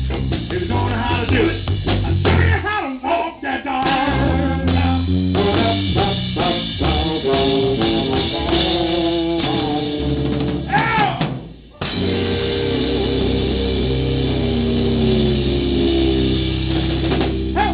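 Electric guitar and drum kit playing blues rock live, the guitar bending notes. The music drops out briefly about two-thirds of the way through, then comes back with long held guitar notes over the drums.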